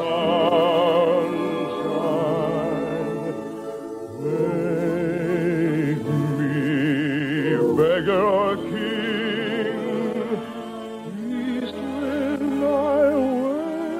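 Operatic singing in long, held notes with wide vibrato, over an orchestral accompaniment, from an old radio operetta recording.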